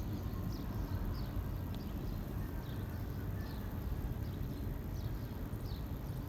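Small birds chirping, short high falling notes about once or twice a second, over a steady low rumble.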